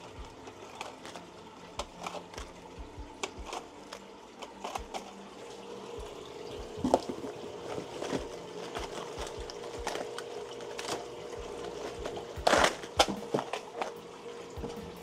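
Scattered light clicks and plastic rustling as fishing lures and their plastic packaging are handled, with one louder rustle about twelve seconds in. A steady faint hum comes in about five seconds in and runs underneath.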